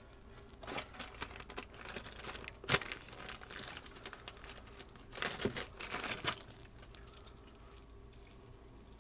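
Faint, intermittent rustling and crinkling with a few sharp clicks and taps, from hands handling plumbing fittings and parts.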